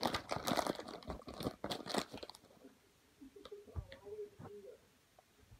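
Fleece pyjama fabric rubbing and crackling against a phone's microphone for about two seconds, then quieter scattered rustles.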